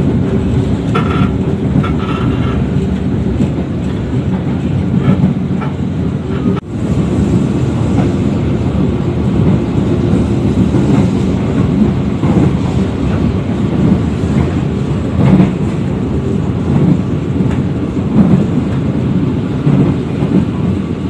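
Steady rumble of a passenger train running at speed, heard inside the coach: wheels on the rails and the carriage's running noise. There is a brief drop in level about six seconds in.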